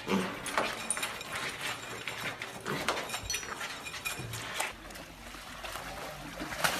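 Two mini pigs eating dry pellets from a bowl, a run of irregular crunching and chomping clicks. Near the end the crunching gives way to a quieter, steady hiss.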